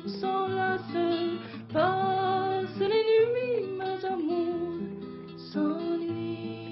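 Acoustic guitar played solo after the last sung line, plucked notes ringing over held bass notes: the closing instrumental passage of the song.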